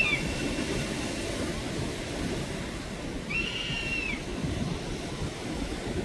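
Sea waves and surf making a steady low rumble, with wind on the microphone. Two high whistle-like tones, each about a second long, sound over it: one right at the start and one about three and a half seconds later.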